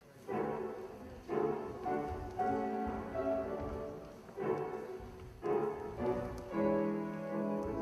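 Orchestral classical music, bowed strings holding sustained chords, with new chords entering about once a second.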